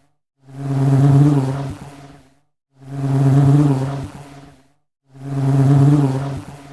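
Honey bee buzzing, a steady low hum with overtones. It comes in three passes of about two seconds each, every one swelling up and fading away, with silence between.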